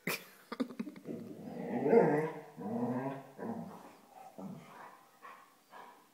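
A dog making low, drawn-out growling and whining sounds that rise and fall in pitch while playing with a baby, loudest about two seconds in, then breaking into shorter grumbles. A sharp click comes right at the start.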